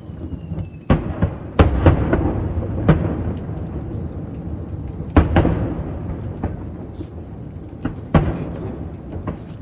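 Aerial fireworks shells bursting: about half a dozen deep booms at uneven intervals, the biggest in the first three seconds and a little after the middle, each trailing off in a long rumble.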